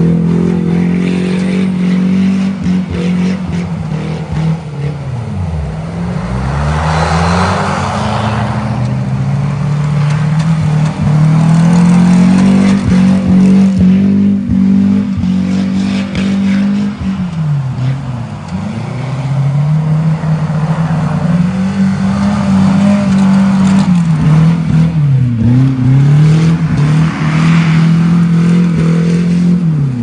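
Off-road SUV engine revving hard while it is driven through snow. It is held at high revs for long stretches, and three or four times the pitch drops sharply and climbs straight back as the throttle is lifted and reapplied.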